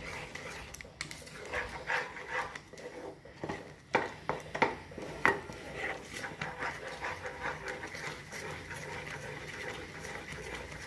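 Wooden spatula scraping and stirring thick, sticky moong dal halwa around a frying pan as it cooks down and thickens. There are a few sharper knocks of the spatula against the pan about four to five seconds in.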